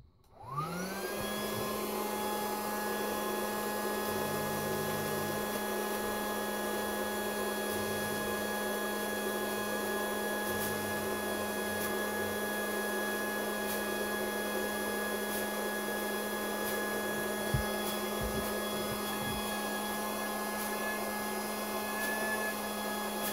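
Small electric air blower on a homemade fog machine switched on: its motor whine rises as it spins up within the first second, then runs steadily with a rushing hiss as it blows air and fog-fluid droplets through the hose into the heated chamber. A single short knock sounds about two-thirds of the way through.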